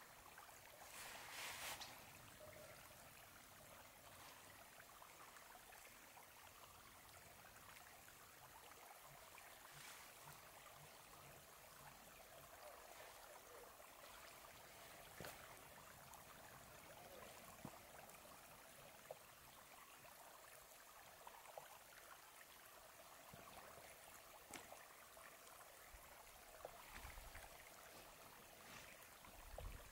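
Near silence: a faint steady hiss, with a brief rustle about a second in and a few soft clicks scattered through.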